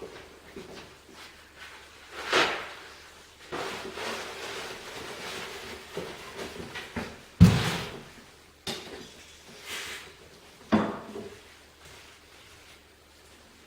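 Metal parts of a lathe tailstock being handled on a workbench: scattered knocks and clicks with stretches of rubbing in between, the loudest a heavy clunk about seven seconds in.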